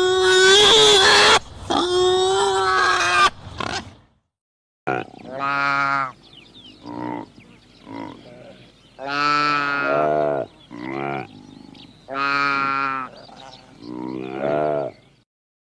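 Animal calls: a loud, harsh call for the first few seconds, then after a short pause a series of about seven drawn-out, low, pitched calls.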